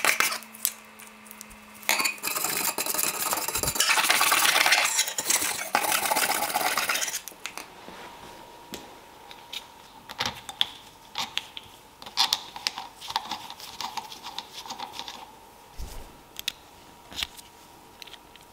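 Wire brush scrubbing rust off an old steel drawing compass in fast, dense strokes, stopping about seven seconds in. After that, small metal parts clink and tap as they are handled and set down on the bench.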